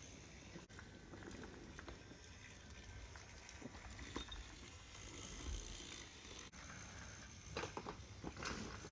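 Faint whirring of a battery-powered motorised toy train running along plastic track, with a few light clicks near the end.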